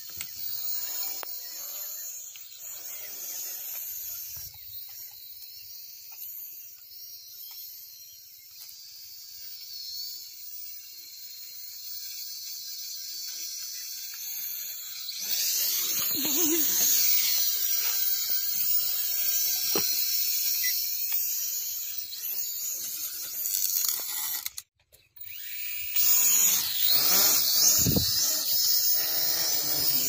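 Small quadcopter drone's electric motors and propellers whining, the pitch wavering up and down as it flies. It gets louder about halfway through and cuts out for a moment near the end.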